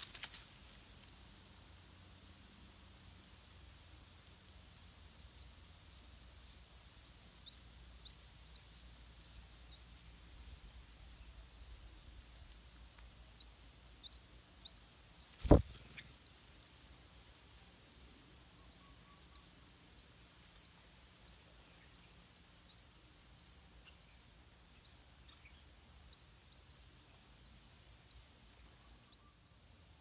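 Yellow-vented bulbul nestlings begging: a long run of short, high-pitched peeps that slide downward, two or three a second. A single sharp knock sounds about halfway through.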